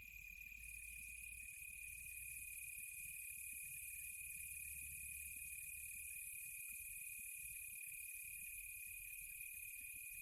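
Steady, faint chorus of crickets and other insects: a constant high trill with a denser, higher hiss of insects that thickens about half a second in.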